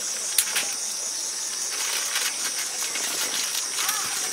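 Steady high-pitched chorus of night insects trilling, with one sharp click about half a second in and a few fainter ticks after it.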